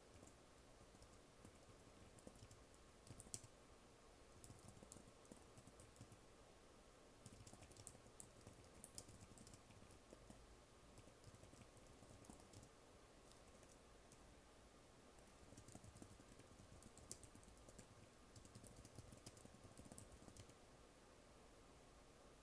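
Soft typing on a computer keyboard: quick runs of key clicks in bursts of a second or two, with short pauses between words and sentences.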